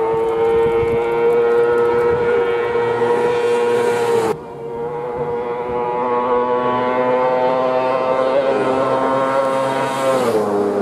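Road-racing sidecar outfits at full throttle: a high, steady engine note breaks off abruptly about four seconds in and a second one takes over. The second note drops sharply in pitch near the end as the outfit passes at speed.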